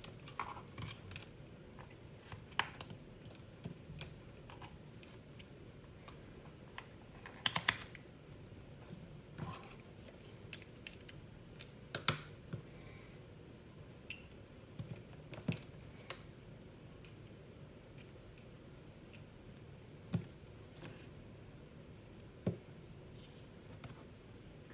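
Scattered light clicks and taps of a multimeter, its test leads and small capacitors being handled, at irregular intervals several seconds apart, with a louder quick run of clicks about seven and a half seconds in.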